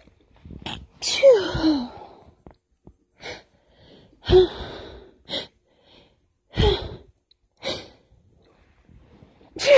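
A woman's strong sneezes, held back as stifles, come in a quick series of four, one every two to three seconds. Each is preceded by a short sharp intake of breath, and the first ends in a little voiced squeak that falls in pitch.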